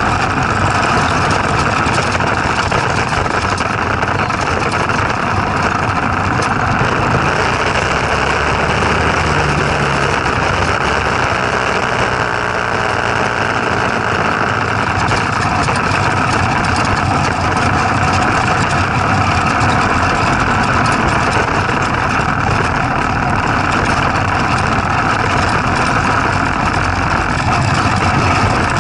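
Small engine running steadily, a constant drone that holds the same speed throughout.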